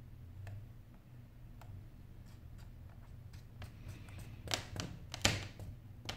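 Faint ticks and clicks of fingers and a small tool handling the internal parts of an opened iPhone 8 Plus, with two louder short scrapes about four and a half and five and a half seconds in and a sharp click near the end, over a low steady hum.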